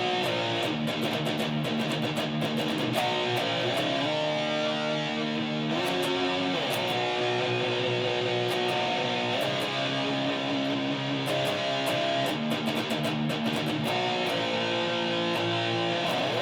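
Electric guitar playing a heavy rock riff of held, strummed chords that change every one to three seconds.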